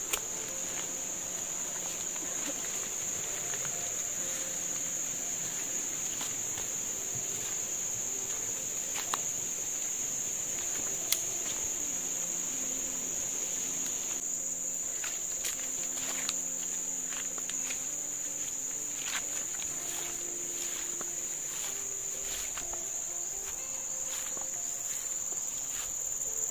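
Steady, unbroken high-pitched drone of forest insects, with a few faint scattered clicks over it.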